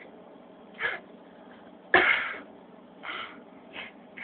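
A person's short, sharp breaths or sniffs, four of them, the loudest and most sudden about two seconds in.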